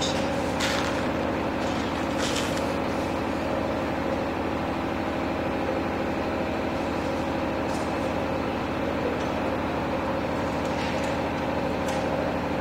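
A steady machine hum made of several even tones, unchanging throughout, with a few faint light clicks.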